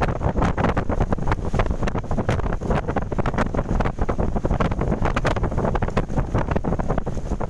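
Strong gale wind blasting across the microphone: a loud, unbroken rumble that flutters rapidly with the gusts.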